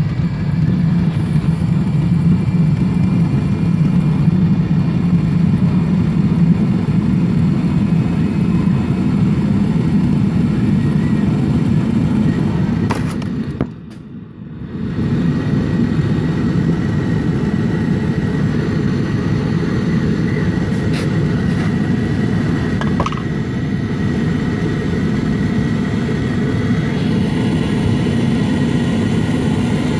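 Webasto Thermo Top V diesel heater running, its combustion fan and burner making a steady, even roar. The sound drops away briefly about fourteen seconds in, then returns.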